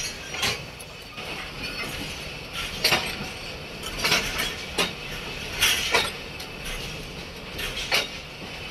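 Passenger train rolling slowly, heard from an open coach doorway: a steady running noise broken by irregular sharp metallic clanks and clicks from the wheels on the track.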